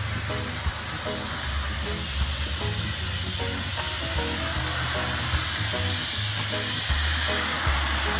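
Low-pressure steam lance hissing steadily as it jets onto paving slabs to lift chewing gum, heard under background music with a steady bass line.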